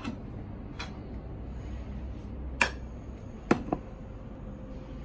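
Four light knocks and clicks of vegetables being handled and set down on a plate on a kitchen countertop, the last two close together, over a steady low hum.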